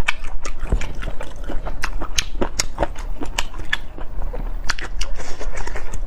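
Close-miked eating of Laba-garlic pickled chicken feet: biting and chewing with sharp, irregular crunchy clicks and wet smacks, several a second.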